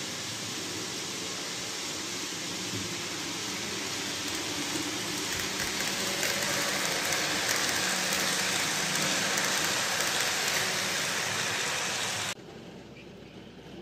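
N gauge model train running along the layout track: a steady rushing hiss of wheels and motor that grows louder as the coaches pass close, then drops away suddenly about twelve seconds in.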